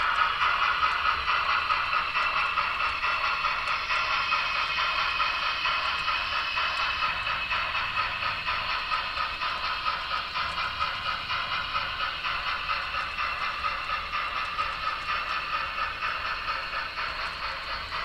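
Steam chuffing in an even rhythm from the factory-fitted Paragon 3 DCC sound decoder of a Broadway Limited N scale USRA steam locomotive model, played through its small speaker, with a light clatter of the coaches on the track. The sound fades gradually as the train runs away.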